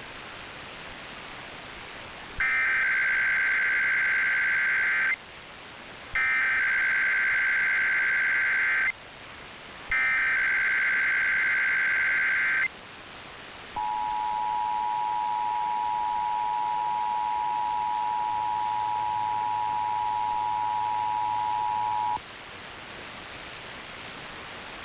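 Emergency Alert System tones: three bursts of the warbling digital SAME header data, then the steady two-tone attention signal held for about 8 seconds over broadcast hiss. This sequence opens an EAS message, here a required monthly test.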